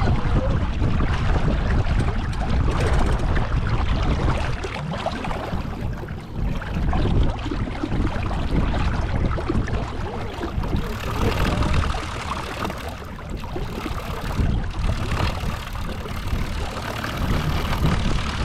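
Wind buffeting the microphone, a dense rumble that rises and falls in gusts, with a hiss above it.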